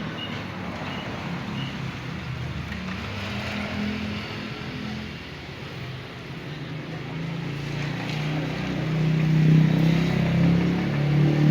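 A motor vehicle's engine running steadily, growing louder about eight seconds in.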